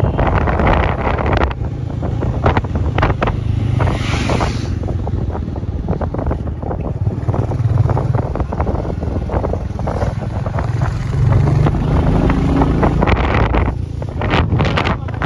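Wind buffeting a phone microphone on a moving Royal Enfield motorcycle, with the engine's low drone underneath. Fabric rubs and scrapes against the phone in many short bursts.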